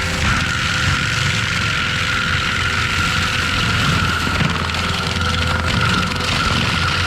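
ASV RT-120F compact track loader running under power with its TMC Kinsella forestry mulcher head spinning: a steady high whine over the engine's rumble.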